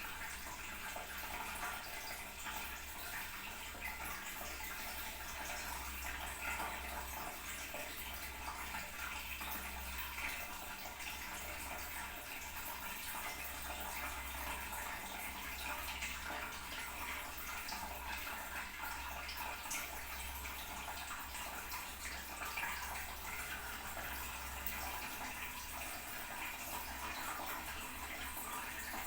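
Toilet cistern refilling: water running steadily into the tank with an even hiss.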